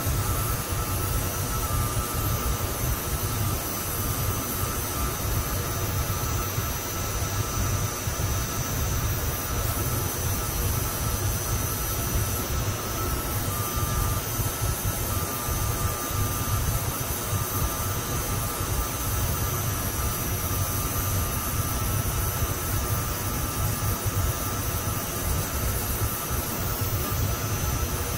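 Brazing torch flame burning steadily on a copper refrigerant line as it is heated to braze in a ball valve: an even, low rushing noise with hiss over it.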